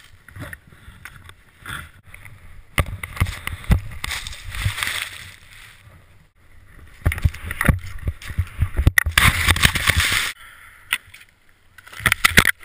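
Skis cutting through deep powder snow, a rushing spray of snow in loud surges with quieter stretches between, with wind rumble on the GoPro's microphone.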